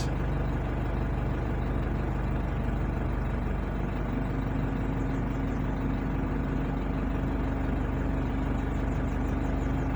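Steady low mechanical hum of a running engine, even throughout, with a faint steady higher tone joining about four seconds in.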